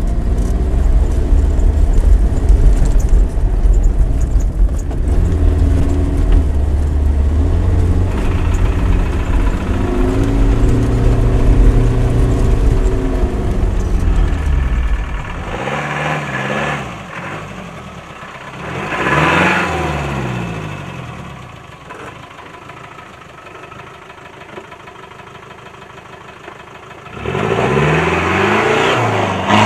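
Land Rover Discovery 200Tdi turbo-diesel engine pulling off-road, first as a heavy low rumble heard from inside the cab. After about 15 seconds it is heard from outside, its revs rising and falling in several bursts as it climbs rough ground, softer for a while and louder again near the end.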